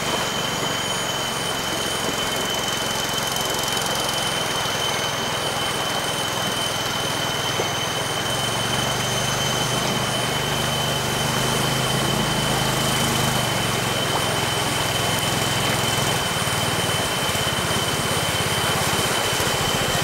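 Engine of a small narrow wooden river boat running steadily as the boat works upstream through shallow water, slowly growing louder as it comes closer. Under it is the steady rush of the river and a thin, constant high whine.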